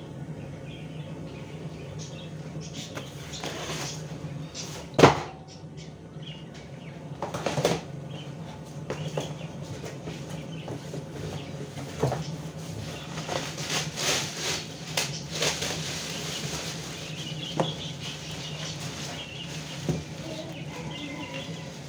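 Cardboard box being opened and its flaps pulled back, then plastic bags of raw meat rustling and crinkling as they are handled, with one sharp knock about five seconds in. A steady low hum runs underneath.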